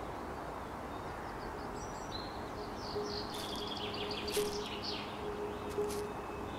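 Woodland ambience: birds chirping, with a run of quick chirps in the middle, over a steady background hiss, and a few short crackles.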